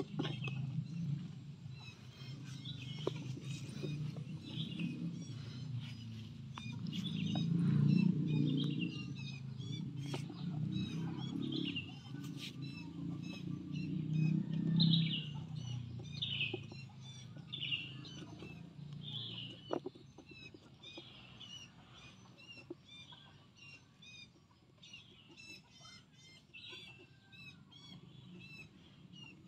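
Small birds chirping, a short call every second or so, over a low rumble that is loudest in the first half and fades out later.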